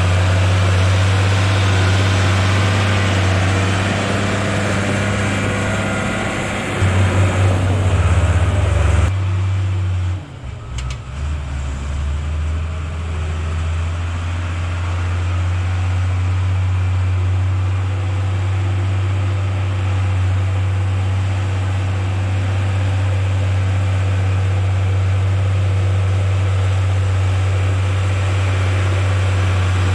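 Crawler dozer's diesel engine running as the machine pushes and grades dirt. It grows louder around seven seconds in, drops off sharply about nine seconds in, then runs steadily again.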